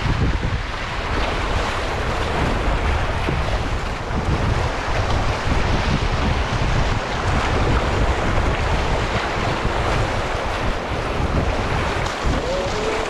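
River rapids rushing and churning around a canoe, with wind buffeting the microphone.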